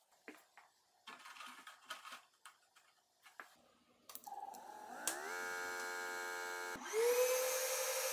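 A few light knocks and clicks, then the laser's electric air-assist pump starts about four seconds in: its motor whine rises and holds steady, then jumps higher and louder with a hiss near the end as its speed knob is turned up.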